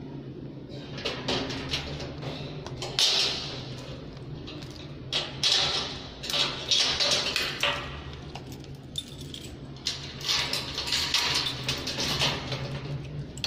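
Keys jangling and clicking in the lock of a metal grille gate as it is unlocked, with a paper shopping bag rustling. The result is an uneven run of short clicks and rattles.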